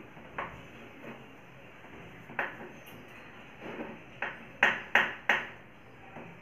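Chalk tapping and scraping on a chalkboard as strokes are drawn: a series of short, sharp clicks, the three loudest in quick succession near the end.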